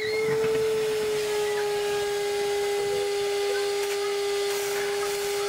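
Wet-dry vacuum running steadily, a constant whine over a hiss, its hose held at the water surface to suck up duckweed and water.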